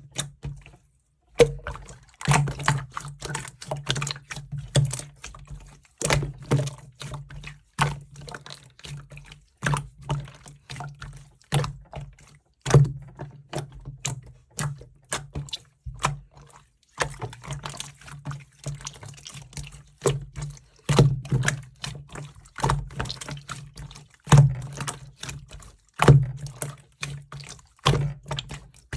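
Slime being squeezed and poked by hand: an irregular run of wet clicks and pops, several a second.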